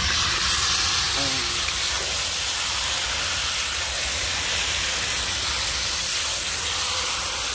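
Marinated mutton, wet with yogurt and masala, sizzling steadily in a hot oiled iron kadai as it goes into the pan.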